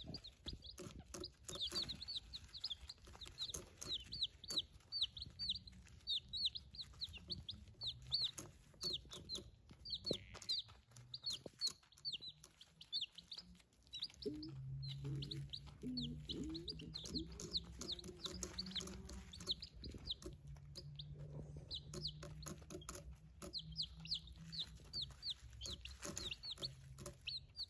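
A brooder full of day-old chicks peeping continually: short, high, downward-sliding peeps, several a second, with light ticking and scratching in pine shavings. A low hum sits under the peeping from about halfway on.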